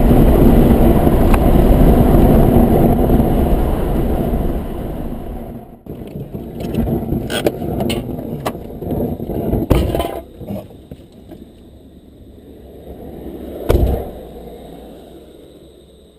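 Car cabin road and tyre noise at highway speed, loud and steady for the first few seconds, then fading away. After that come scattered clicks and knocks, with one louder thump about 14 seconds in.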